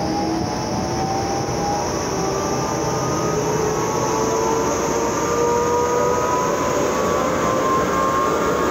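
NEUERO GSD 280/270 EL pneumatic grain conveyor's electric-driven blower running loud and steady, with whining tones that slowly climb in pitch as the sound grows a little louder, as it is put under load after its electric drive was repaired.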